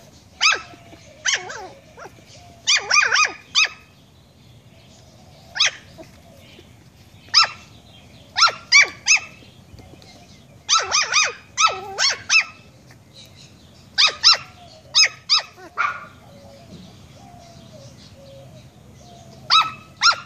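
Chihuahua puppy barking in short, high-pitched yaps, some alone and some in quick runs of three or four, with a pause of a few seconds near the end.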